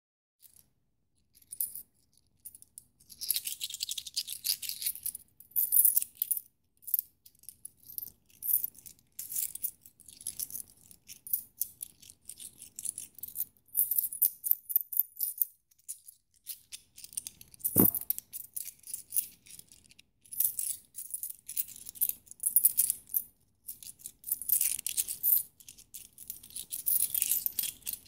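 Coins jingling and clinking against one another in irregular bursts of bright, rapid clicks, with one sharper knock about two-thirds of the way through.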